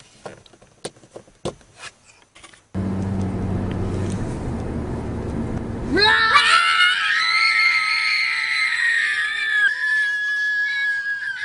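A few sharp clicks of cables being plugged into a USB car charger, then a steady car-cabin rumble with a low hum cuts in suddenly. About six seconds in a child's high-pitched scream starts, one long held cry, trailing into a thinner high-pitched wail.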